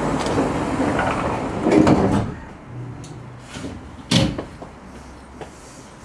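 Inside a standing train's cab, a noisy clatter and rumble for about two seconds, then a single sharp door thump a little after four seconds in.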